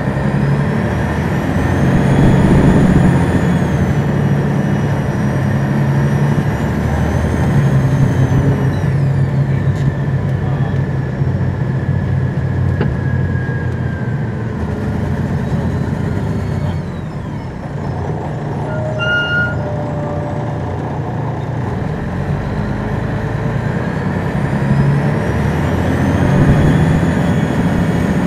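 Detroit Diesel Series 60 engine of a 2002 MCI D4000 coach bus, heard from the rear, pulling through its gears with a whine that rises and falls several times. Partway through it drops to a low idle for a few seconds, with a brief electronic tone, then pulls away again.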